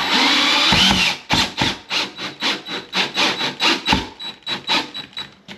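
Cordless drill driving a screw through a steel light-fixture mounting plate into the electrical box. It runs continuously for about a second, then in short pulses about four a second until near the end.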